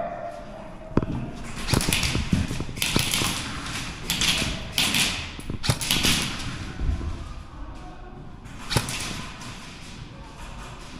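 Scattered sharp clicks and knocks, some in quick succession, with rustling noise between them: airsoft guns firing and a player moving during play.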